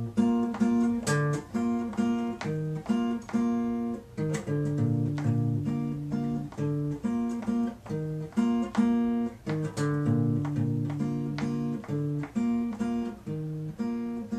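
Acoustic guitar played solo in a steady rhythm of plucked chords with low bass notes.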